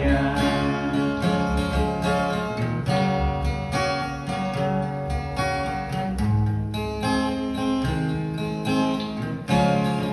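Acoustic guitar played alone, without singing, its chords changing every second or two, with a firmer strum about nine and a half seconds in.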